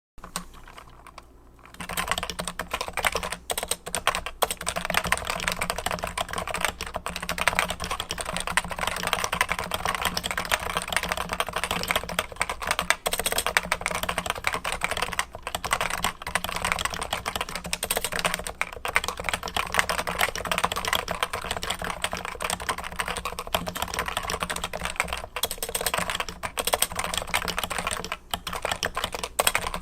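Continuous fast typing on a Novatouch keyboard with 45 g Topre-style switches and Topre high-profile keycaps. The rapid keystrokes begin about two seconds in and run with only brief pauses.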